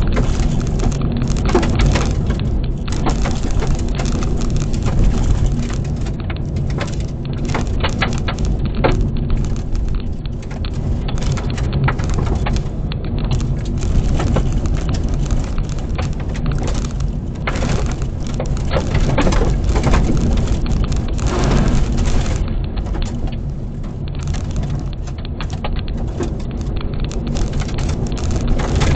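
Loose gravel pelting the underbody and wheel wells of a stock 2012 Mazda 3 as it drives fast on a gravel road, a dense, rain-like patter of stone hits over a steady tyre and road rumble, heard from inside the cabin.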